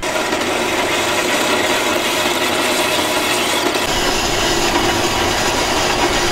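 Horizontal metal-cutting band saw running and cutting through rusty steel angle iron, a steady, even sawing noise without a break.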